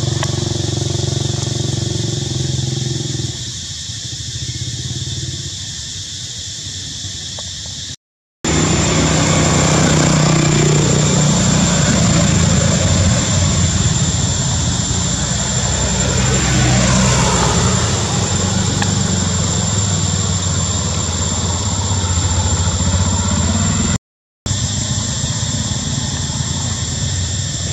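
Steady drone of motor vehicle engines running, with one louder swell of changing pitch about two-thirds of the way through, like a vehicle passing close. The sound cuts out completely twice for a moment.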